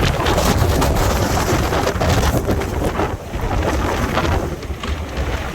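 Strong windstorm gusts blowing hard, with heavy, uneven wind buffeting on the microphone.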